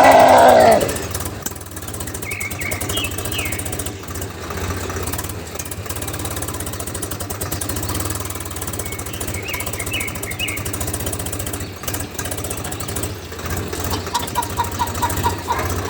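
Small motor of a DIY mini model tractor running steadily with a fast, even buzz. A brief loud call comes in the first second and short chirps come twice over the motor.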